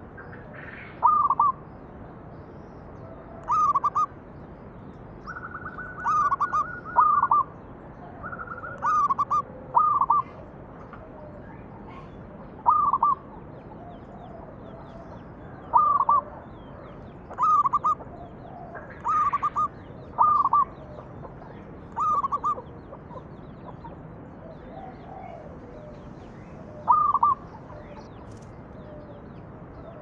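Zebra dove (perkutut) singing its cooing song: about a dozen short rolling coo phrases at irregular intervals of one to three seconds, a few led by a flat, slightly higher note, with a longer pause near the end. Faint high chirps of other small birds sound in the background.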